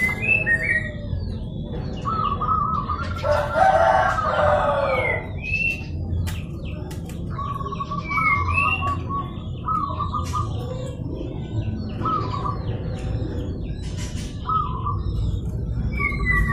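Zebra doves (perkutut) cooing in short trilled phrases repeated every second or two, with a rooster crowing once from about 3 to 5 seconds in and small birds chirping higher up.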